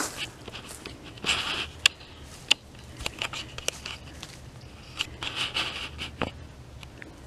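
Footsteps pushing through dry brush: brittle twigs and branches crackling, scraping and snapping, with several sharp separate snaps and short bursts of rustling.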